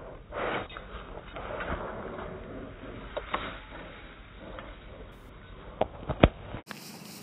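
A young shepherd–pitbull mix dog panting hard with her mouth open, in soft rushes of breath. A few sharp knocks come near the end.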